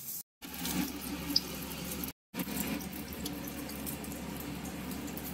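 Egg-soaked bread frying in hot mustard oil in a kadai: a steady sizzle with scattered crackles and one sharp click about a second and a half in. The sound cuts out twice, briefly.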